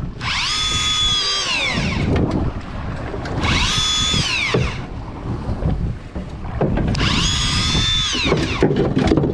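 A small electric motor winding in a fishing line in three short runs, each whining up to speed, holding steady for about a second, then winding down, over steady wind rumble on the microphone.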